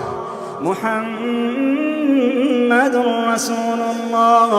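A male Quran reciter's voice holding a long melodic note in tajwid-style chanting, bending the pitch in ornaments and rising in the middle. A brief hiss comes a little past three seconds in.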